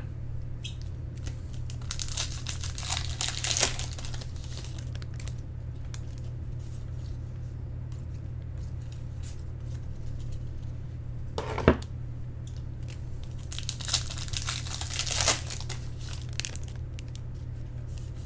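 Trading-card pack wrappers being torn open and crinkled, in two bouts with a sharp tap between them, over a steady low hum.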